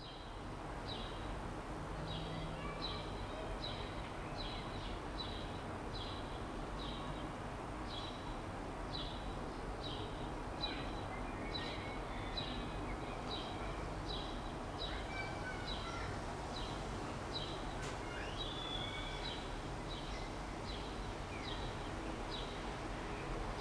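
Outdoor ambience over a steady low background hum: a bird chirping over and over in short high notes, with a few other bird calls joining in the second half.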